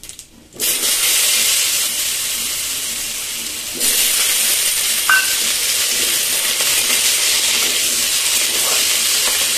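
Cubed raw potatoes tipped into hot oil over whole spices and dried red chillies, setting off a loud, steady sizzle about half a second in that grows louder again partway through. A spoon stirs the potatoes in the pan near the end.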